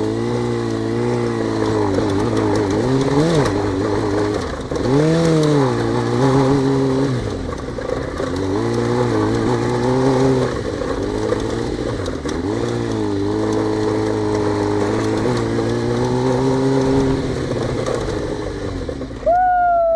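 Suzuki GSX-R600 inline-four sport-bike engine under varying throttle while climbing a slippery dirt slope, its pitch rising and falling again and again. Near the end a sharp high rev drops away in pitch.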